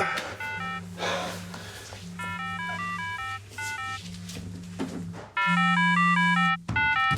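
Mobile phone ringtone playing a short electronic melody over a low note, repeating about every second and a half, signalling an incoming call. It gets much louder about five seconds in and breaks off briefly near the end.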